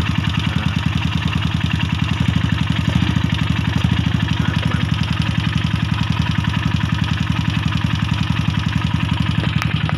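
Yamaha SRL 115 Fi (Lagenda 115 Fi) fuel-injected single-cylinder four-stroke engine idling steadily with an even beat. It now starts and runs after a fuel pump that gave the injector too little pressure was sorted out.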